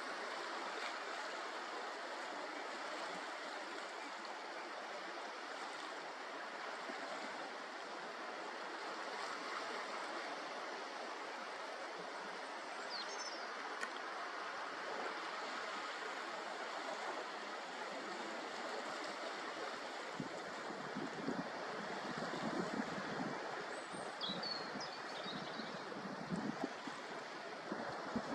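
Steady wash of sea water and surf, with a few faint, high bird calls about halfway through and again near the end. Some low bumps come in during the last third.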